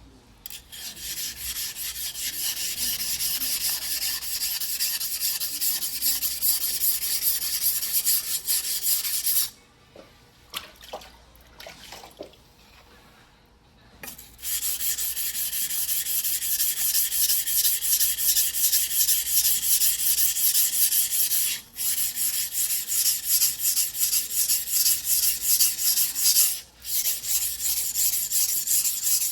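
Steel yanagiba blade being rubbed back and forth by hand on a wet whetstone: a fast run of rasping strokes. The strokes stop for about five seconds in the middle, with a few light knocks, then start again.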